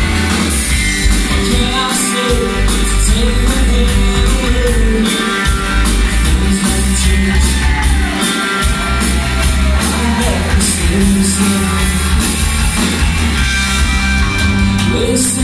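Live indie rock band playing loudly: electric guitars, bass guitar and a steady drum beat, with the lead singer's vocals over the top.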